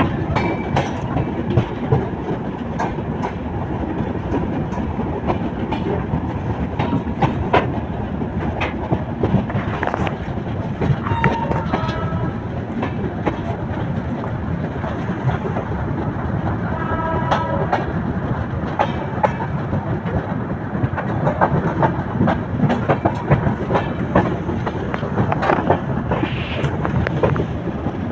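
Passenger train running at speed, heard from an open coach doorway: a steady rumble with wheels clattering over rail joints. Twice in the middle, about twelve and seventeen seconds in, the locomotive horn gives a short blast.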